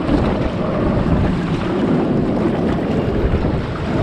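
Rushing water and wind buffeting the microphone during a ride down a water slide, a loud steady noise.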